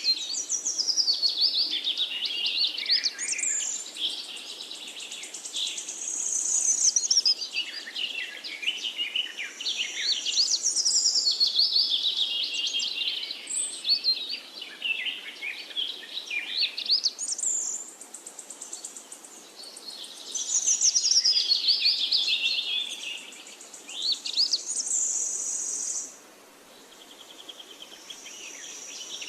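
Songbirds singing in a run of fast warbling, trilling phrases a few seconds long, one after another with short gaps between them, then a brief lull near the end.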